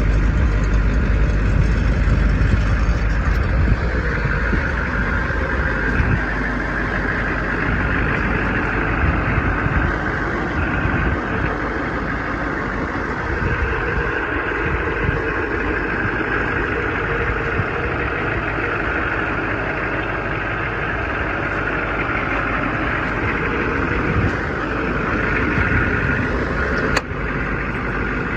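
A vehicle engine idling steadily, with a constant low rumble.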